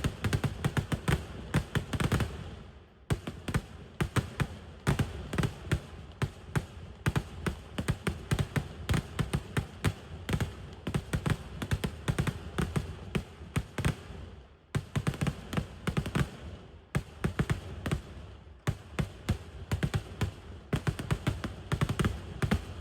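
Firecrackers going off in a rapid, continuous chain, a Kerala vedikkettu barrage, with several sharp bangs a second and a few brief pauses.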